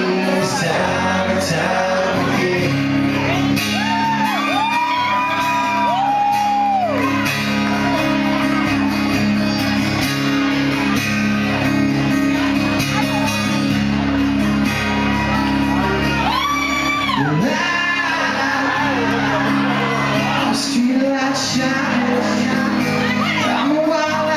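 Live band music, loud and steady, with a singer holding long sung notes and the crowd shouting and whooping.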